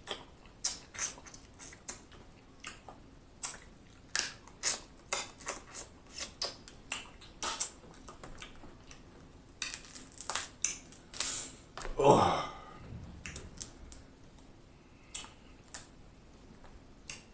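Eating snow crab legs by hand: a string of short clicks, cracks and mouth smacks as the shells are broken and the meat is sucked out. One longer, louder sound comes about twelve seconds in.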